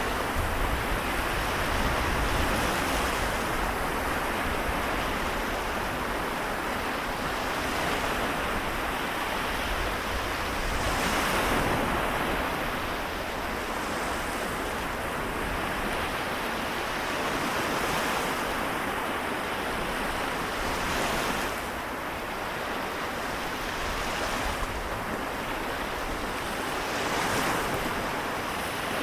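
Seto Inland Sea waves washing onto the shore in a continuous rush, swelling a few times as bigger waves break.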